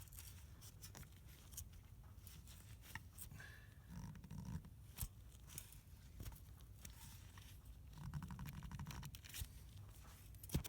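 Faint clicks and rasping from a wrench working a seized exhaust manifold bolt back and forth in the cylinder head, with two short spells of rapid ticking about 4 and 8 seconds in.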